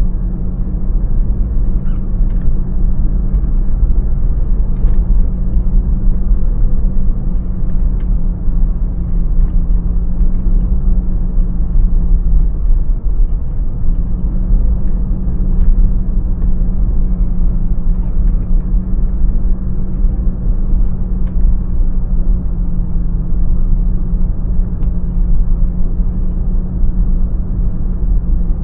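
A car driving: steady engine hum and low road rumble from the tyres. The engine tone eases off briefly about halfway through, then carries on.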